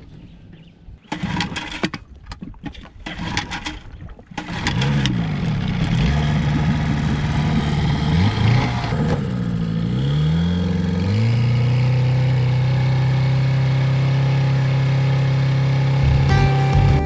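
Small 6 hp outboard motor on an inflatable dinghy being pull-started: several short yanks in the first few seconds, then it catches about four and a half seconds in. It revs up and down for several seconds, then settles at a steady pitch, running at speed.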